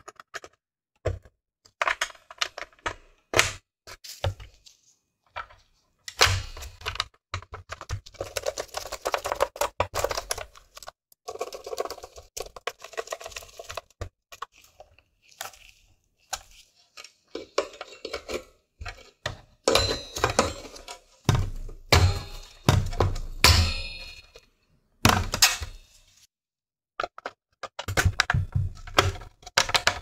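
Plastic and sheet-metal parts of an Xbox One S being handled and fitted back together: irregular clicks, knocks and clatter, with a couple of longer scraping stretches and heavier thuds in the second half.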